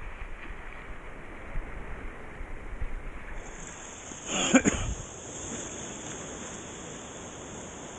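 Steady hiss of shallow sea water lapping, with low wind rumble on the microphone. A short shout rings out about four and a half seconds in.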